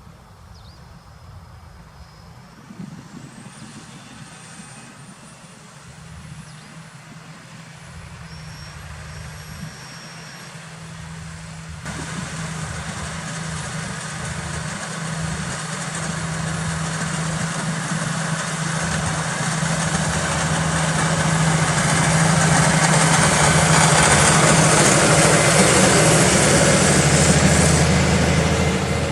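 Claas Axion 830 tractor's diesel engine running under load, pulling a plough, with a steady low note and a thin high whine. It grows steadily louder as the tractor comes closer, with a sudden jump in level about twelve seconds in.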